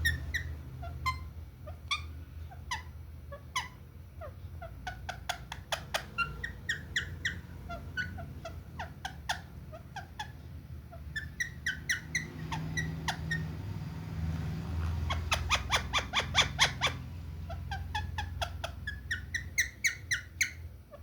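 Small birds chirping and twittering in short sharp calls, with a fast rapid run of chirps about three quarters of the way through, over a low steady hum.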